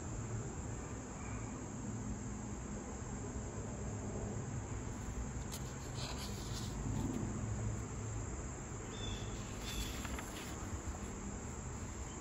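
Steady high trilling of insects, with a low steady hum underneath and a few faint short sounds around the middle.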